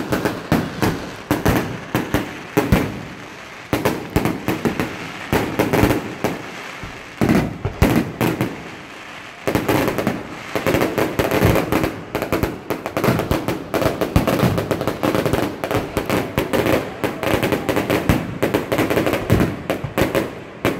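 Aerial fireworks shells bursting in rapid succession, many sharp bangs overlapping one another. The bangs thin out briefly about three seconds in and again around nine seconds in, then come as a dense, continuous barrage for the rest of the time.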